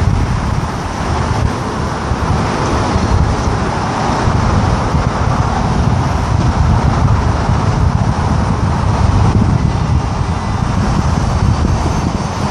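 Chevrolet Silverado hi-rail pickup's engine running steadily as it sits on the rails, with a fluctuating low rumble that may include wind on the microphone.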